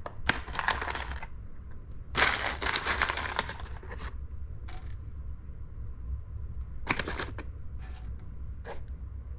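Coffee beans rattling as they are tipped a little at a time into a container on a scale to weigh out an 18-gram espresso dose. They come in several short bursts with pauses between, the longest about two seconds in.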